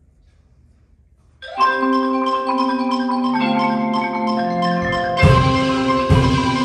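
Percussion ensemble of marimbas, xylophones and vibraphone starts playing about a second and a half in, with ringing, sustained chords. From about five seconds in, low drum strokes join, roughly once a second.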